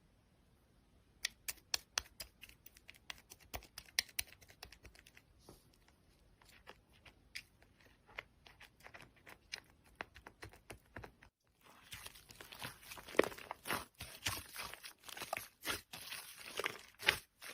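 Slime being squished and pressed by hand, giving a run of sharp clicks and pops. After a brief pause about two-thirds in, the clicking comes back denser and louder.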